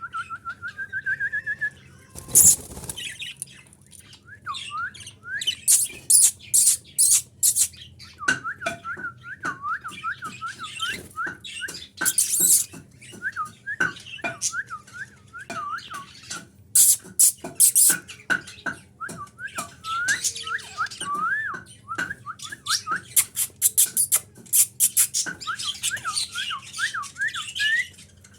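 Budgerigars chattering: runs of quick, short rising-and-falling chirps, broken by sharp clicks and harsh squawks.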